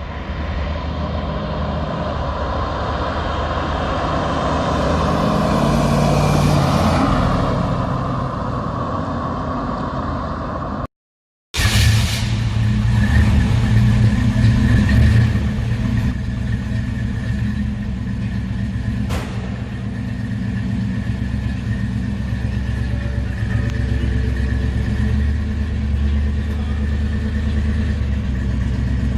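1969 Ford Mustang's exhaust with the engine running. It revs up to a peak about six seconds in, breaks off for half a second at about eleven seconds, comes back with another rev, then settles to a steady idle.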